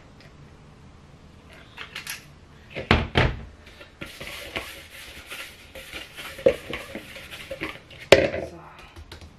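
Plastic mixing bowl knocking twice on a countertop about three seconds in as a ball of pizza dough goes into it, followed by a few seconds of rustling and soft knocks from floury hands working around the bowl, and one sharp knock near the end.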